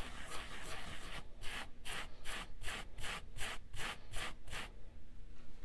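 A metal lathe gear rubbed back and forth on a Scotch-Brite abrasive pad to clean it, in quick hissing strokes about three a second. The strokes start faint, grow stronger after about a second, and stop near the end.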